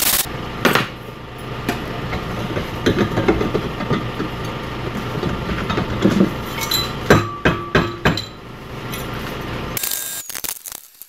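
Steel exhaust pipe handled in a bench vise: scattered metal-on-metal clinks and knocks, with a few sharper ringing clanks about two-thirds of the way through. Under them is a steady low hum that stops near the end.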